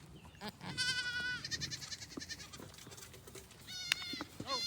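Goats bleating: several wavering calls, one after another with short pauses between.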